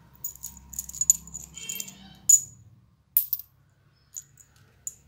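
New steel steering-head bearing cups and a caged ring of ball bearings clinking against each other in the hand: a series of sharp metallic clinks, the loudest a little past two seconds in.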